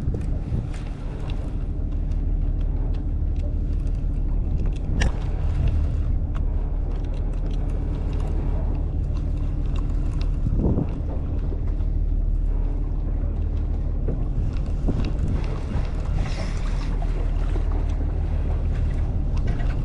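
Steady low drone of a boat's engine running, with wind on the microphone and a sharp knock about five seconds in.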